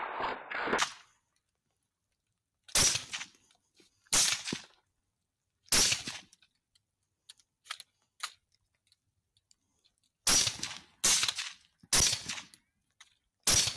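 A string of rifle shots fired at a group of running hogs. There are about seven loud sharp cracks, each dying away in under a second: single shots a second or so apart, a few fainter shots in between, and a quicker run of shots near the end.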